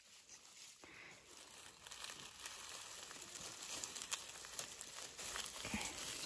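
Dry bamboo leaf litter rustling and crinkling faintly as a hand moves through it, getting a little louder near the end.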